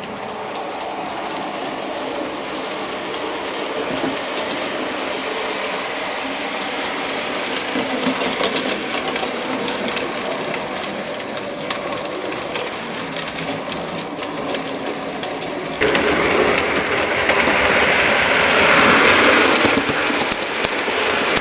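OO gauge model train running on the layout's track: the small motor's hum with the wheels clicking over the rail joints. It gets sharply louder about sixteen seconds in.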